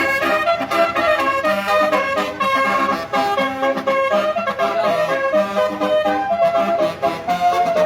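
Indonesian bus telolet horn, a set of air-horn trumpets, playing a continuous trumpet-like melody that steps quickly from note to note.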